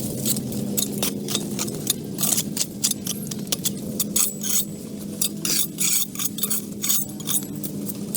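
Rapid, irregular clinks and scrapes of hard objects over a steady mechanical hum.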